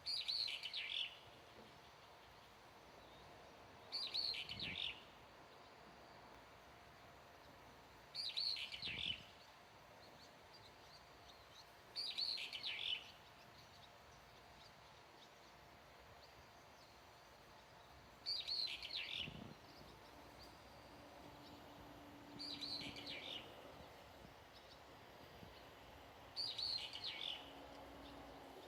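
A songbird repeating the same short, high call over and over. Each call is a quick run of notes dropping in pitch, about a second long, and it comes seven times at intervals of roughly four seconds.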